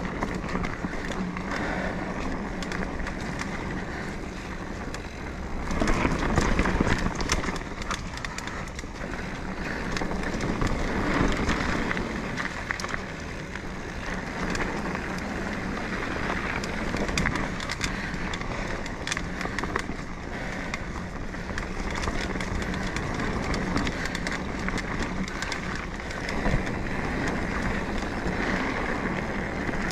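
Mountain bike being ridden along a dirt singletrack trail: steady tyre noise over dirt and rocks with frequent small rattles and clicks from the bike, swelling louder now and then.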